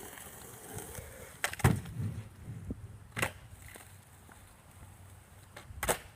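Skateboard rolling on hard ground with a low rumble, and three sharp clacks of the board hitting the ground, the first about a second and a half in and the loudest.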